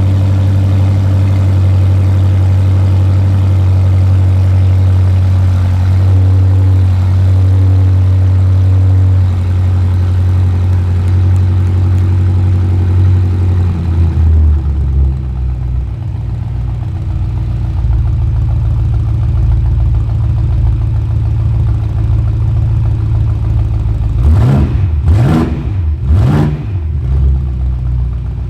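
BMW X5M F85's 4.4-litre twin-turbo V8 running with no exhaust fitted after the downpipes: a fast idle just after startup that drops to a lower idle about halfway through, then three quick revs near the end. It sounds deep but subdued, which the owner puts down to restrictive downpipes.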